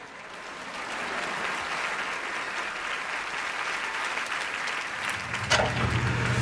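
Theatre audience applauding, swelling over the first second and then holding steady. Near the end a low steady hum comes in under it.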